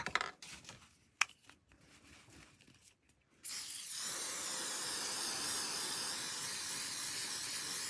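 An aerosol can of hair spray spraying in a steady hiss, starting about three and a half seconds in, after a near-quiet stretch with one faint click about a second in.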